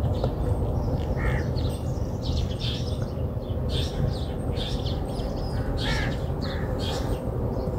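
Birds chirping and calling again and again, in short high calls, over a steady low rumble.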